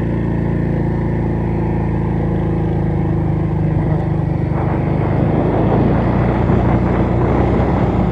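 Motorcycle engine running steadily under load as the bike climbs a narrow road, heard from the rider's seat. A rougher, noisier layer joins about halfway through.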